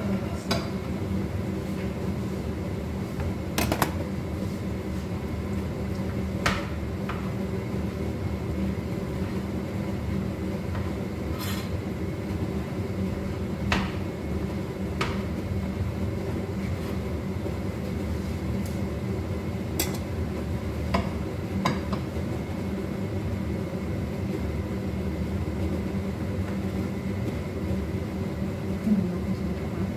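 Steady hum of a kitchen range-hood extractor fan over a lit gas hob, with a scattering of short clinks from a spatula against a frying pan.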